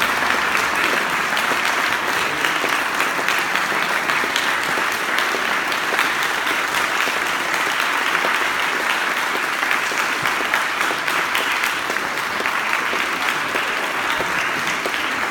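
Large audience applauding steadily, many people clapping at once in a standing ovation.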